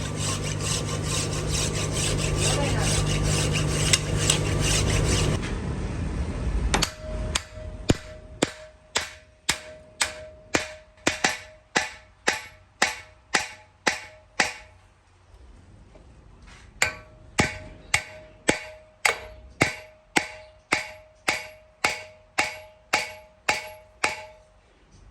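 A machine runs steadily for about the first five seconds and then stops. After that a hammer strikes metal about twice a second, each blow ringing. The blows break off for about two seconds in the middle, then carry on at the same pace.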